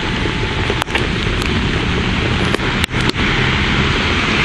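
Steady hiss of heavy rain and wind on the microphone during a thunderstorm, cutting out for an instant a few times.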